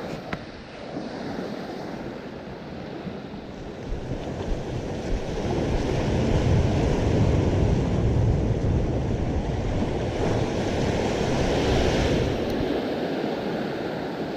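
Ocean surf washing and breaking, with wind buffeting the microphone; the surge builds about five seconds in and eases near the end.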